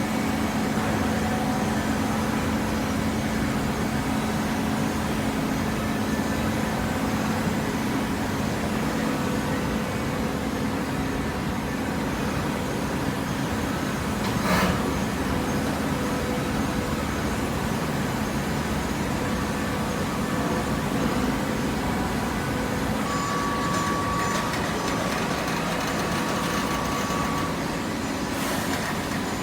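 Hydraulic cardboard baler's power unit running with a steady machine hum, and a single short knock about halfway through.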